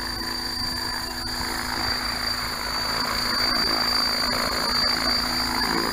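A T-REX 600-class RC helicopter hovering low, its rotor and motor making a steady whine with a rushing rotor noise. The noise grows louder about halfway through.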